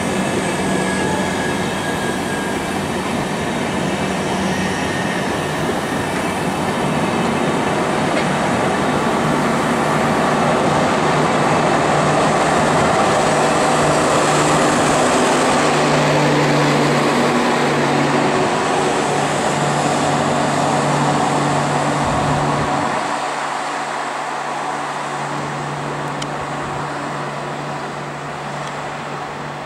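Passenger express of air-conditioned LHB coaches rolling past at speed: a steady rumble and rush of wheels on rail that swells past the middle, with a steady low hum joining partway through. The sound then fades as the train's tail draws away.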